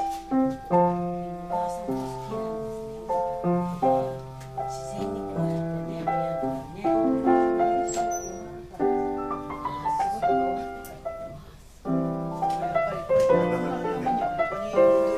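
1872 Rittmüller upright piano being played: a continuous flow of chords and melody notes, each ringing and fading, with a brief break about three quarters of the way through.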